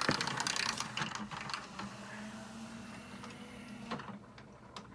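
Tray and carousel mechanism of a Denon DCM-360 five-disc CD changer running, motor and plastic gears whirring with rapid clicks. It is loudest in the first second or so, then settles to a quieter hum, with a sharp click near four seconds. The tray is cycling on its own, the changer's fault.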